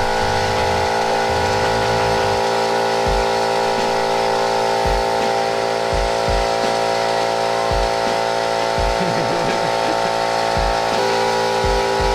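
Air compressor running steadily, with background music and its low bass notes underneath.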